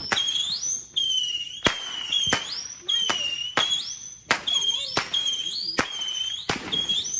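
Fireworks going off in a rapid series of sharp cracks, roughly one every two-thirds of a second, with a high whistling tone that swoops upward after each crack.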